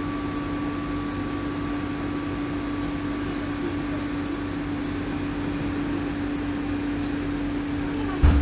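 Interior of a MAN Lion's City Hybrid city bus: a steady hum with a constant mid-pitched tone and a fainter higher tone above it, then a sudden low thump about eight seconds in.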